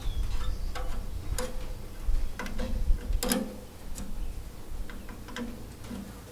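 Irregular light metallic clicks and taps, about one or two a second and loudest about three seconds in, from hand work fitting the fuel line and inline filter onto the Ford 8N's carburetor.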